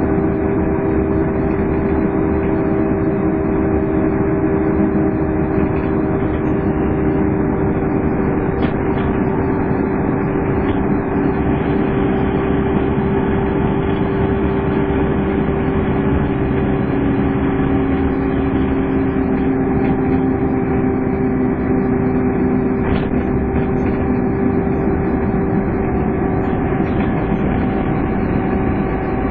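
Scania N230UD double-decker bus running, with the steady vacuum-cleaner-like whine that enthusiasts call 'hoovering' over the engine noise. Its tones shift a little in pitch now and then.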